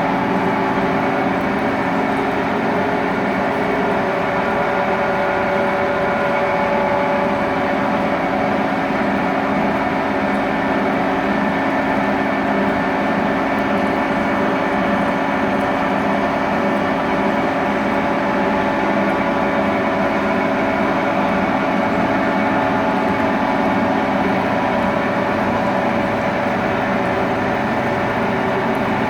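Cincinnati No. 3 horizontal milling machine running steadily while cutting a gear: an even mechanical drone with a whine of several steady tones from its drive.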